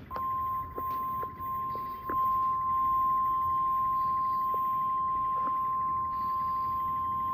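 NOAA Weather Radio warning alarm tone in an Emergency Alert System broadcast: one long, steady single-pitch beep at 1050 Hz, the signal that a National Weather Service warning follows.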